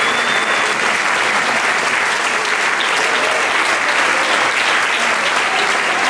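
Audience applauding steadily, a dense mass of clapping hands.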